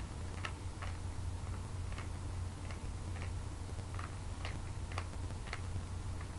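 A 3x3 Rubik's Cube's plastic layers being twisted, a short sharp click with each turn, about two a second and unevenly spaced, over a steady low hum. The turns are the repeated R' D' R D sequence that orients the last corners.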